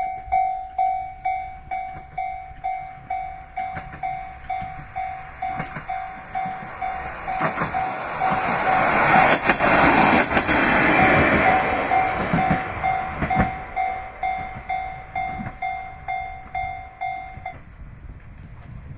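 A Japanese level-crossing warning bell dings about twice a second while a single-car diesel railcar passes, rising to its loudest about halfway through, with a few sharp wheel clicks over rail joints. The bell stops a little before the end, once the train has cleared.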